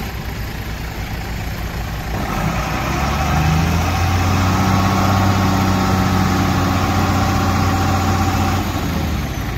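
Heavy diesel engine running, rising in speed about two seconds in, holding steady at the higher speed, then dropping back near the end.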